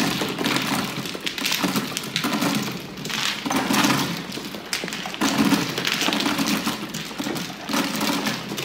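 Plastic mahjong tiles clattering as they are swept across the felt and pushed into the centre opening of an automatic mahjong table: a dense rattle of clacks that swells and fades in waves.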